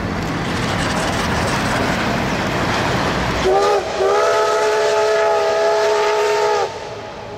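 A passing passenger train running on the rails, then its whistle sounds: a short blast and, after a brief break, a long blast of nearly three seconds, several tones at once.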